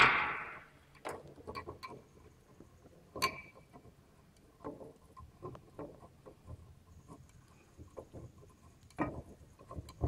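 Scattered small clicks and knocks of a screwdriver and metal waveguide parts handled on a wooden bench as flange screws are fitted, with a louder clatter right at the start and a sharp click about three seconds in.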